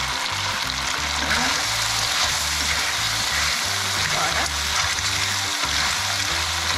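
Background ukulele music over a pan of lala clams in sambal sizzling as it simmers.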